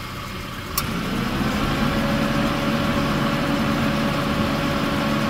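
Honda Fit's four-cylinder engine idling; about a second in, a sharp click as the AC compressor's magnetic clutch engages on the bypassed pressure switch. Then a steady hum with a whine that rises briefly and holds as the compressor runs, the sign that the compressor itself works and the pressure switch was the fault. The hum fades near the end.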